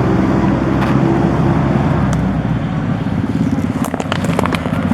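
An engine running steadily with a fast, even pulsing, and a few sharp clicks about four seconds in.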